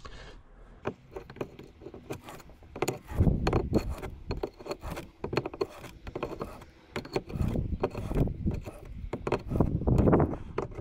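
Hand tool working the 29 mm steering cable nut on an outboard's tilt tube, standing in for the missing 29 mm spanner: irregular metallic clicks and knocks with bouts of scraping and rubbing as the nut is turned.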